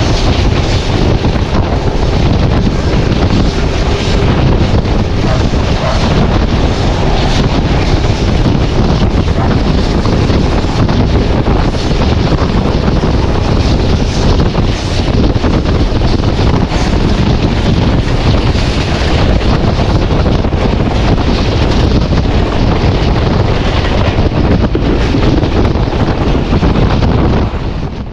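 Heavy wind buffeting the microphone over the rushing noise of a diesel train in motion, a loud steady roar that cuts off abruptly near the end.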